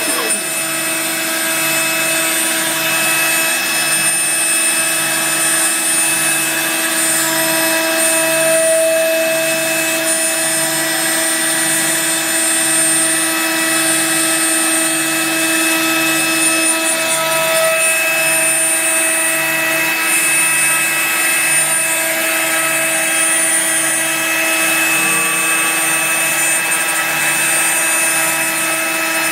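CNC router's spindle motor running at speed with a steady, high machine whine while it mills a wooden sheet, a dust-extraction vacuum drawing through its hose. A faint low pulse repeats about once a second underneath.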